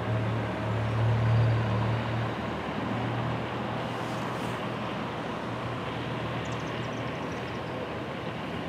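A low motor-vehicle engine hum over steady outdoor traffic noise, the hum strongest for the first couple of seconds and then fading away.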